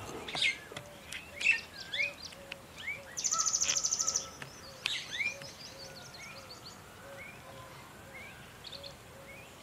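Small wild birds chirping and calling, with short rising whistles and a rapid rattling trill lasting about a second, about three seconds in. A soft low note repeats about twice a second beneath them.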